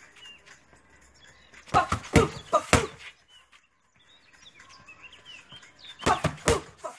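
Boxing gloves smacking into focus mitts: two quick combinations of about four or five sharp punches each, a few seconds apart.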